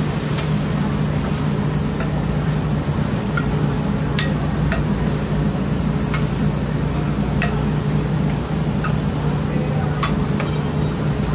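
Oyster omelettes frying on a flat iron griddle: a steady sizzle, with a metal spatula clicking and scraping against the griddle about once a second at irregular spacing, over a steady low hum.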